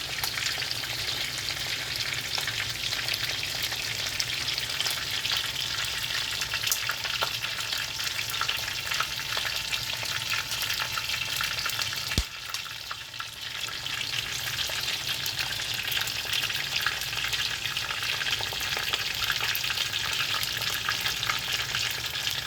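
Squid frying in hot oil: steady sizzling and crackling with constant small pops. About halfway through there is a single sharp knock, after which the sizzle briefly quietens before building back up.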